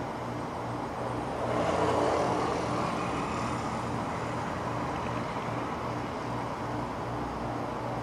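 Road traffic noise with a vehicle passing by, swelling about a second and a half in and fading a couple of seconds later, over a low pulsing hum.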